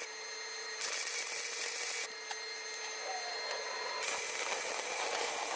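Welding arc hissing and crackling on the steel pedal arm in stretches of a second or two, with a faint steady hum underneath.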